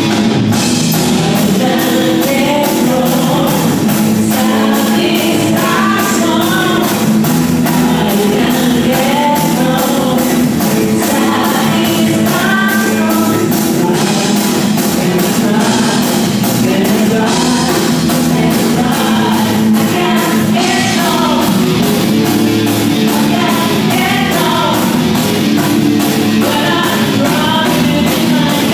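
Live rock band playing: a woman singing lead over electric guitar, keyboard and a drum kit keeping a steady beat.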